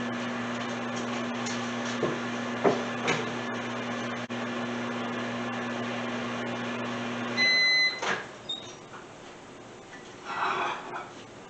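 Microwave oven running with a steady hum, then a single beep about seven and a half seconds in as the heating cycle ends and the hum stops, followed by a sharp click.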